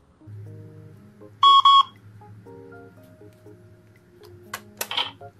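Electronic cash truck piggy bank beeping twice in quick succession: its alert that the door has been left open. Background music plays throughout, and a few sharp clicks come near the end.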